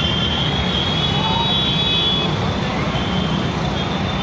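Dense, steady engine and road noise from a slow convoy of motorcycles and cars, with a thin high-pitched tone held over it for the first couple of seconds. A faint voice calls out about a second in.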